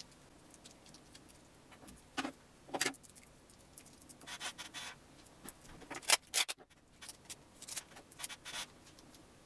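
Packing tape being handled and wrapped around a small lithium-polymer battery cell: scattered crinkles, rustles and light clicks, with a sharper click about six seconds in.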